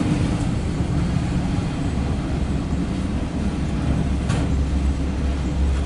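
Loaded autorack freight cars rolling past a level crossing, heard from inside a car; the rolling rumble thins about two seconds in, leaving a steady low hum, with a single short clank about four seconds in.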